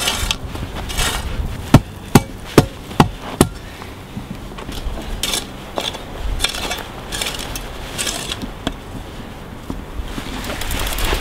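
Shovel digging and scraping dry dirt in repeated strokes, with a run of five sharp knocks in quick succession about two seconds in.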